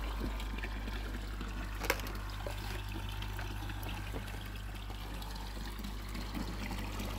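Koi pond water running and trickling steadily, with a constant low hum underneath. A single sharp click about two seconds in.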